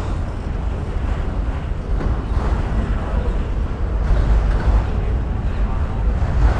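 Freight train's last autorack cars rolling past and away on the rails, with wind buffeting the microphone in a low rumble.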